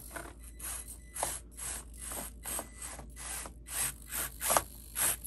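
The Basher Rocksta mini rock crawler's small motor-on-axle gear motors grinding in short, rapid bursts, about three a second, as it crawls up rock. The owner finds this drivetrain noisy when crawling and suspects the gear mesh at the motor.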